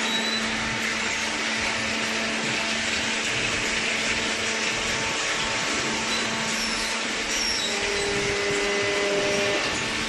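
Hydraulic cardboard baler running: its electric motor and hydraulic pump give a steady hum over a constant whirring noise, with an extra tone joining for a short while near the end.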